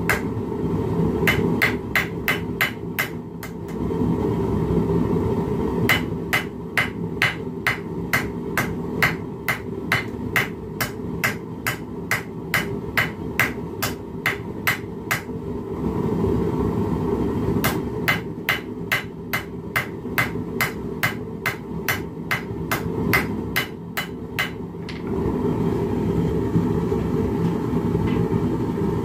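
Hand hammer striking hot steel on the anvil face of a bench vise, in runs of sharp ringing blows about two or three a second. The blows pause about four seconds in and again around sixteen seconds, then stop about twenty-five seconds in. A steady low rush from the gas forge burner runs underneath.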